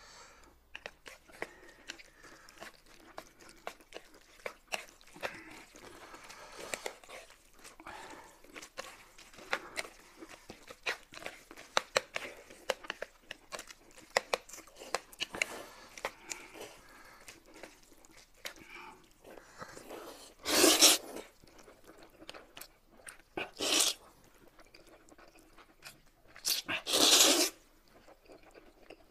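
Chewing and crunching of food: many small crisp clicks, with three louder, longer noisy bursts in the last third.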